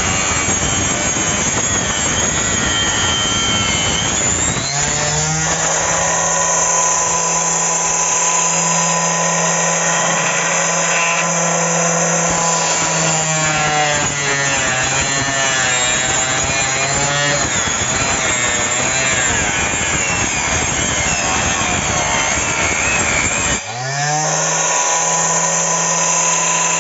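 Homemade circular saw, a 775 DC motor spinning a 110 mm blade, cutting through plywood: a steady rasping cut over the motor's whine. The whine rises in pitch about five seconds in and again near the end, just after a brief dip in loudness.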